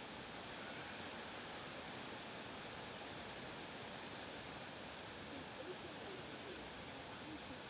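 Steady wind noise: an even hiss with a constant high-pitched edge and no distinct events.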